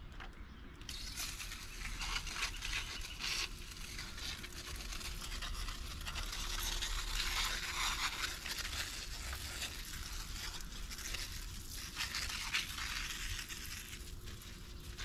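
Greenwood 1.25-gallon pump sprayer shooting a jet stream from its wand onto weeds and leaves: a steady, uneven hissing spatter that starts about a second in.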